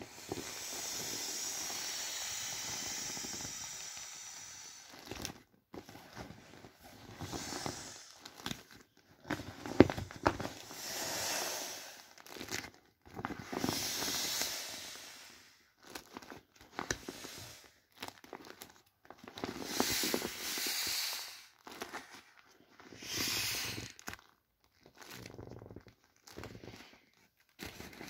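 Air hissing out of a small inflatable vinyl boat as hands squeeze it flat, with crinkling plastic. A long steady hiss comes near the start, then a run of shorter gusts of hiss and crinkle a few seconds apart.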